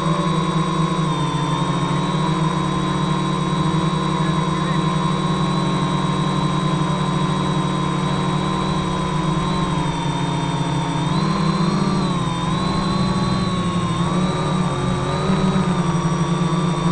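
GAUI 330X-S electric multicopter's motors and propellers, heard up close from a camera on its frame: a steady buzz with a high whine that wavers up and down in pitch partway through as the motors change speed.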